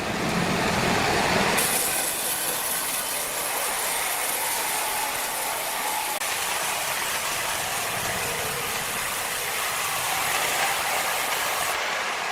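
Sawmill machinery running with a steady, dense mechanical clatter. A brighter high hiss joins about a second and a half in and drops away near the end.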